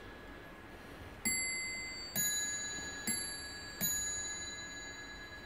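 Warmink Dutch bracket clock striking four times on its two bells, the strokes alternating between a higher and a lower bell. Each stroke rings on and dies away slowly. The strike is set off by turning the minute hand forward by hand.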